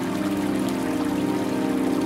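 Slow ambient meditation music of long held low tones, layered over the steady rush and trickle of a flowing stream.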